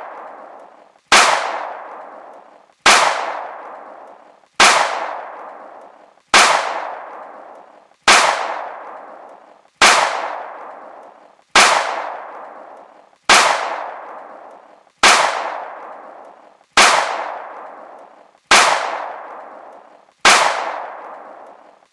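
Gunshot sound effect repeated at an even pace, about one shot every 1.7 seconds, each a sharp crack followed by a ringing echo that fades over about a second and a half.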